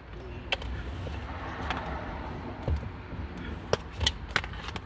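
Handling noises from fitting an LED strip and its wire into car trunk trim: a stretch of rustling about a second and a half in and several light clicks and taps, over a low rumble.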